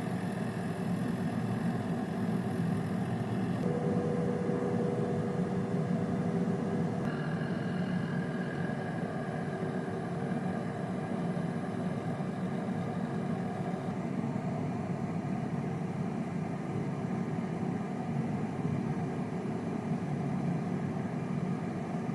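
Air fryer running: its fan gives a steady hum, with a faint extra tone for a few seconds near the start.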